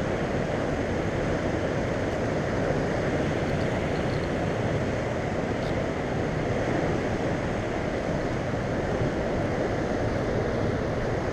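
Steady rushing of churning water with wind buffeting the microphone, an even noise that holds at one level throughout.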